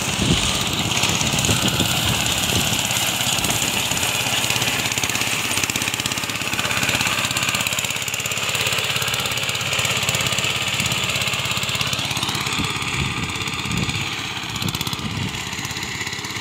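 Small engine of a self-propelled reaper-binder running steadily as it cuts wheat and ties it into sheaves. About twelve seconds in the pitch shifts, and after that it gets a little quieter as it moves away.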